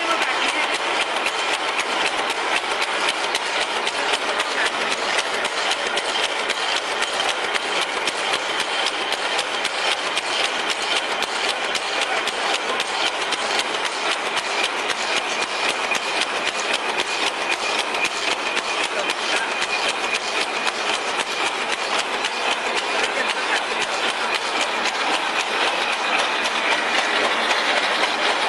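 Automatic barbed wire making machine running: a fast, steady metallic clatter from its barb-twisting head and wire winder, with a faint high whine over it.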